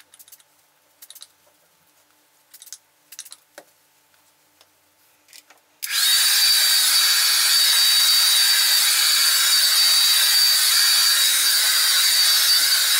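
A few short hissing sprays from a pump spray bottle misting volumizing liquid onto hair, then about six seconds in a Remington hair dryer switches on and runs steadily, with a high whine over its airflow.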